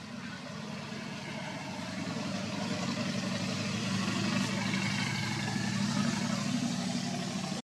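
A motor vehicle engine running steadily, slowly growing louder, then cutting off suddenly near the end.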